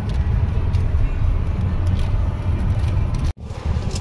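Steady low rumble of road and engine noise inside a moving car's cabin, broken by a sudden split-second dropout near the end before resuming.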